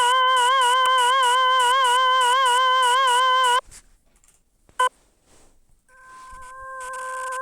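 Desmos graphing calculator audio-trace tones: a synthetic tone with a fast warble in pitch, under a rapid, even ticking hiss. It cuts off suddenly about three and a half seconds in. A short beep follows, then a steady tone fades back in with bursts of hiss.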